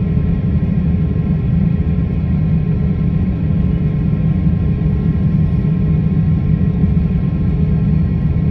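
Steady low rumble inside an airliner cabin as the jet taxis, the engines running at low power, with a few faint steady tones above the rumble.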